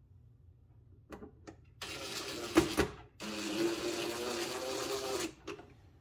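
Cordless impact driver driving screws in two runs, a short one and then one of about two seconds, with a couple of light clicks just before.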